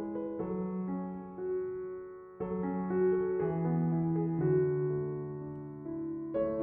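Background piano music, slow held chords.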